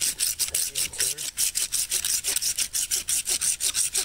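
A steel blade working quickly back and forth against a dry pine stump, a rasping wood-scraping sound at about six strokes a second.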